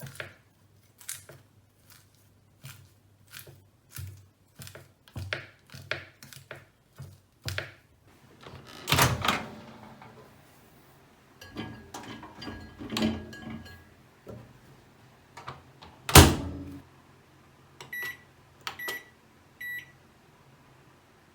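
Chillies being crushed in a run of short, sharp crunching strokes, then a microwave oven: its door clatters open, shuts with a loud clunk, and it gives three short electronic beeps.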